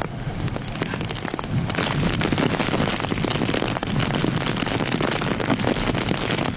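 Typhoon wind gusting hard and buffeting the microphone with a rough, crackling rush, with rain falling; the gust strengthens about two seconds in.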